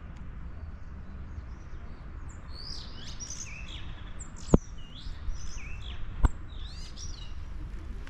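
A songbird singing in short repeated sweeping phrases over a steady low outdoor rumble, with two sharp clicks about a second and a half apart partway through.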